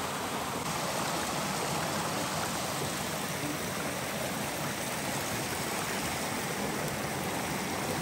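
Shallow woodland creek water flowing and rippling over rocks, a steady rushing without a break.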